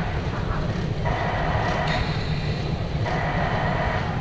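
Low running rumble of the Botchan Ressha, Matsuyama's diesel-powered replica steam tram, on the move. A tone comes and goes about once a second over the rumble.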